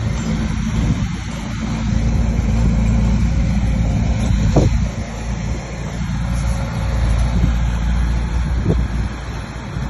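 Bulldozer's diesel engine running with a steady deep drone, with a short sharp clank about halfway through and another near the end.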